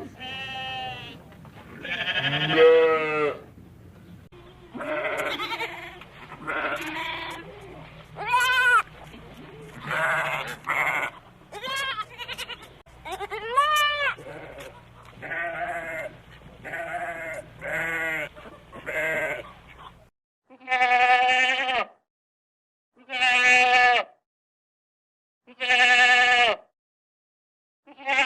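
Goats bleating over and over, short quavering calls of varying pitch over a low background hum. About twenty seconds in the hum stops, and four separate bleats follow, about two and a half seconds apart.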